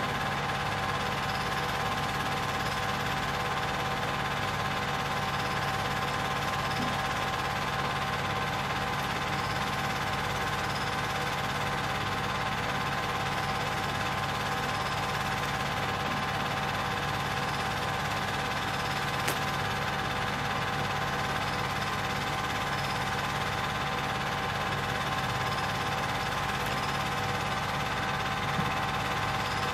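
Film projector running: a steady mechanical hum of motor and mechanism, with several constant tones and no change throughout.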